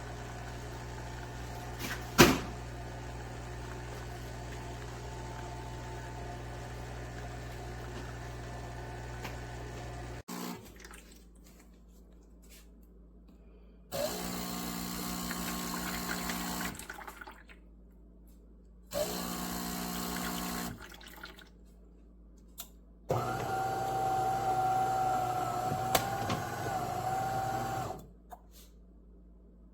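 De'Longhi Magnifica Start fully automatic espresso machine running. A steady hum with one sharp click about two seconds in gives way to three separate spells of pump or motor running, the last and loudest carrying a steady whine.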